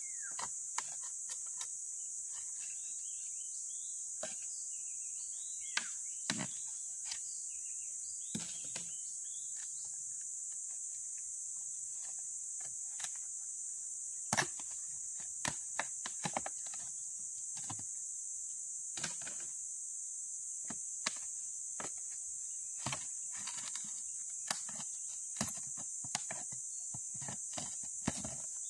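Irregular sharp knocks and cracks of a steel crowbar prying and tapping wooden formwork boards off a concrete column, the loudest about halfway through. A steady high insect drone runs underneath.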